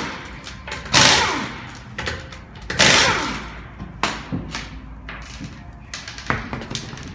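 Pneumatic impact wrench run in three short loud bursts, about two seconds apart, spinning lug nuts off a car wheel, followed by a few lighter metallic knocks.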